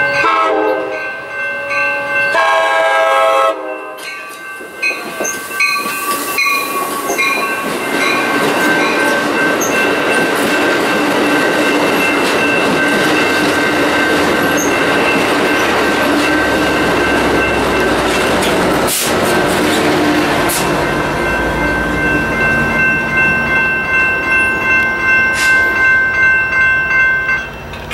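Amtrak California bilevel passenger train sounding its horn at the start, then rolling past with the clatter of its wheels over the rail joints. The sound drops away near the end. A grade-crossing bell rings steadily throughout.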